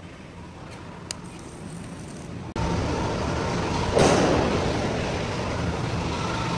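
Quiet background with a single sharp click, then, abruptly about two and a half seconds in, steady loud machinery noise with a faint steady whine, with a brief louder burst of noise about a second later.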